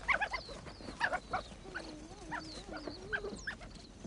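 African wild dogs calling: many short, high chirps and twitters overlapping, with a longer wavering whine in the middle.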